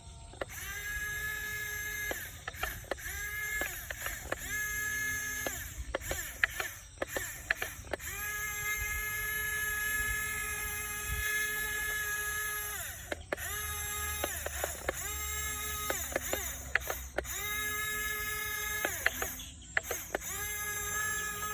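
RC excavator's electric drive motors whining in repeated bursts as the controls are worked, each run starting and stopping with a short slide in pitch. Light clicks and ticks fall between the runs.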